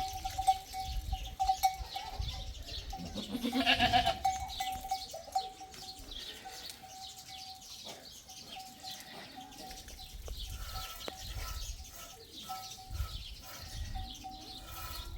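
Sheep and goats with bells around their necks, the bells ringing on and off as the animals move. One animal bleats loudly about four seconds in.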